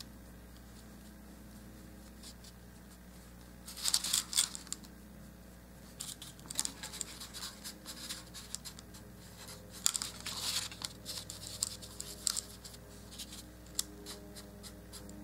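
Small paintbrush scrubbing powdered chalk pastel onto a polymer clay piece and dabbing at the paper plate. There is a short burst of dry scratching about four seconds in, then quick, irregular scratchy strokes from about six seconds on.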